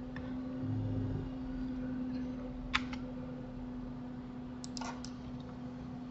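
Sharp clicks of a computer mouse and keyboard over a steady low hum: one click a little under three seconds in, then a quick run of about three near five seconds.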